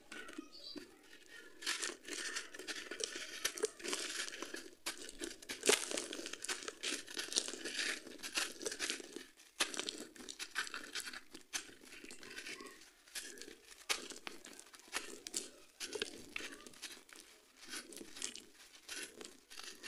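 Dry, gritty sand-cement mix being crushed and crumbled by hand onto a floor: dense, irregular crunching and crackling as lumps break and grains pour between the fingers, with a couple of short breaks.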